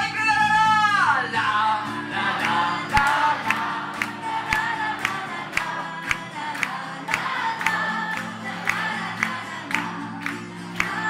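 Live music: an acoustic guitar played with a woman singing into a microphone, over a steady beat of about two strokes a second. About a second in, a held vocal note slides down.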